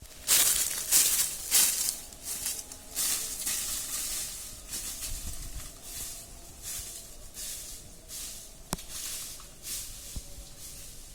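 Rustling in repeated short bursts, a couple per second, loudest in the first two seconds and then softer, with one sharp click near the end.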